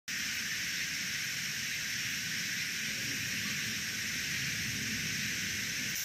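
A steady, even hiss, mostly high-pitched, with no distinct sounds standing out.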